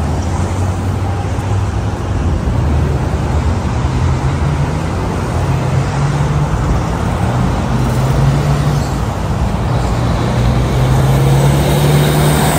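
Busy street traffic: car and truck engines running and passing close by. A low steady engine hum grows louder near the end.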